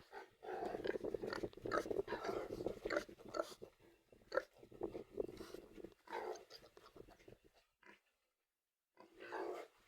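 Pigs in a pen, a sow with her three newborn piglets, making a run of short grunts and snuffles, busiest in the first few seconds, then sparser, with one last burst near the end.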